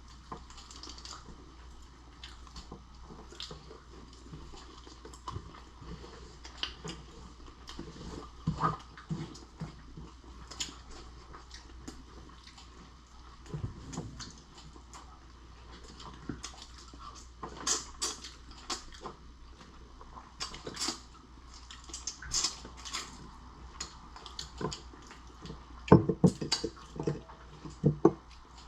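Close-up eating of lobster and shrimp: chewing with scattered sharp clicks and cracks, bunching into a run of louder cracks near the end.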